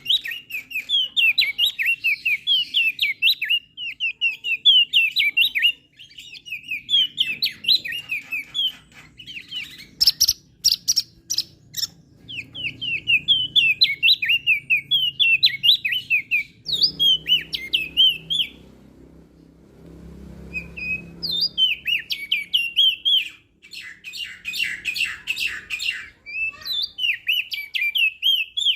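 Opior jambul (crested white-eye) singing a fast, chattering song of quick rising and falling whistled notes in repeated phrases, with a few short pauses and some sharp clicking notes mixed in.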